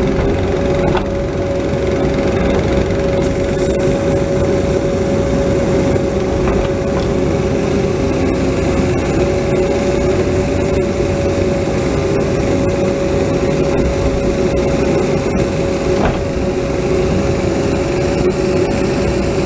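Bobcat 337 mini excavator's diesel engine running steadily while the boom works, heard from the operator's cab, with a steady whine over it and a few faint knocks.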